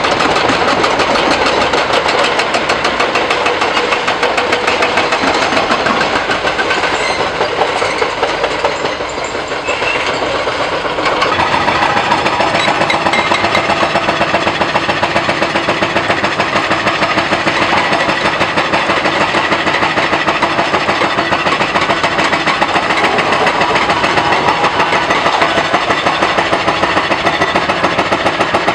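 Demolition excavators breaking up a concrete bridge: a fast, steady mechanical hammering over running diesel engines, easing briefly about nine seconds in and then carrying on.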